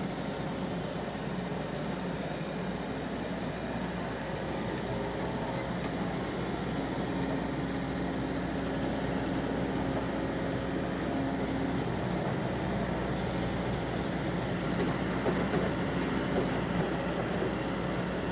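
Excavator's diesel engine running steadily under work, with a steady whine held for several seconds midway and a few light knocks near the end.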